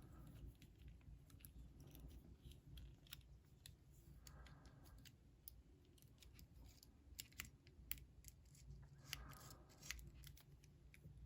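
Near silence with faint, scattered small clicks, a few more of them in the second half: a lock pick being worked inside a lock.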